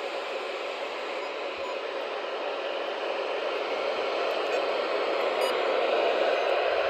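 Steady radio static hiss from a weather radio channel carrying no program audio, growing slowly louder.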